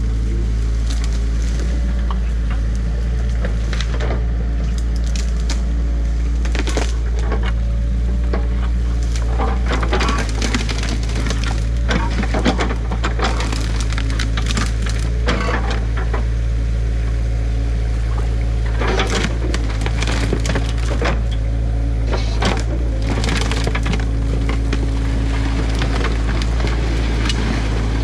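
Excavator engine running steadily while its bucket tears into a beaver dam, with repeated cracking and snapping of sticks and branches in bursts as the packed dam is ripped apart.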